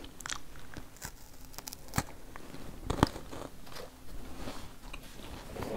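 Crunching as someone bites into and chews a vegan KitKat, its chocolate-coated crispy wafer cracking, with two sharper cracks about two and three seconds in.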